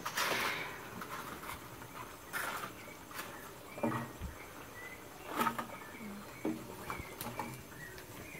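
Corn tortillas deep-frying in hot oil, crackling and sizzling as they crisp into tostadas, with scattered sharp clicks and scrapes as a plastic spatula turns them in the metal pan.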